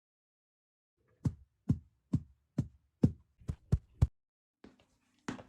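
Foley knocks: a run of about eight sharp thuds, roughly two a second and quickening toward the end, followed by two fainter ones.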